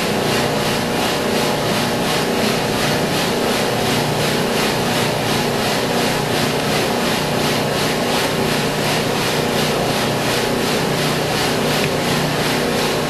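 Freshly roasted coffee beans being stirred in a roaster's perforated cooling tray: a steady rush of the cooling fan and motor hum with the dry rattle of beans swept round by the rotating arms, pulsing evenly and quickly.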